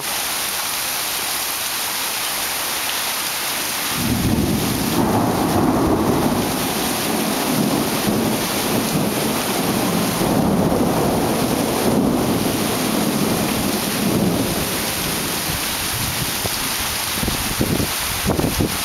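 Steady rain falling throughout. About four seconds in, a long roll of thunder starts rumbling, goes on for ten seconds or so, and fades out.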